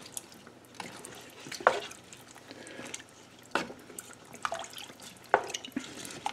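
Wooden spoon stirring chopped vegetables and chicken bones in water in a stockpot: wet sloshing, broken by sharp knocks about every two seconds.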